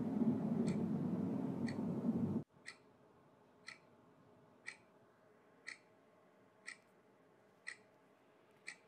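Steady clock-like ticking, one tick a second. For the first two and a half seconds it sits over a loud low rumble that cuts off suddenly.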